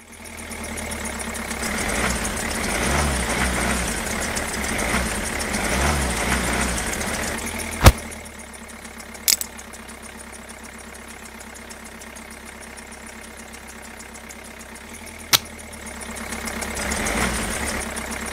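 Tractor engine idling, louder and revving for the first seven seconds, quieter through the middle, then swelling again near the end. Three sharp clicks in the quieter stretch come from the trailer hitch being fitted.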